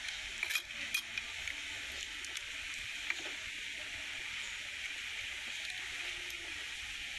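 Steady hiss with a few faint clicks in the first second.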